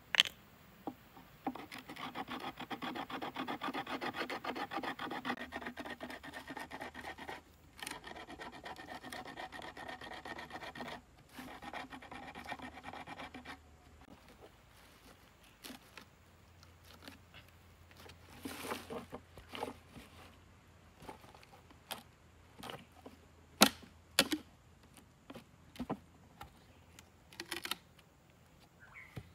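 A sharp stone sawing back and forth across a green bamboo tube, scoring a ring through it to cut off a section: a fast, even rasping scrape that lasts about twelve seconds with two brief pauses. After it come scattered wooden knocks and taps, two of them sharp, about two-thirds of the way through.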